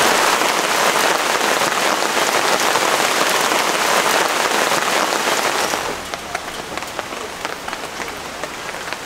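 Heavy rain pouring onto wet pavement, a dense steady hiss. About six seconds in it drops suddenly to softer rain in which separate drops and drips can be picked out.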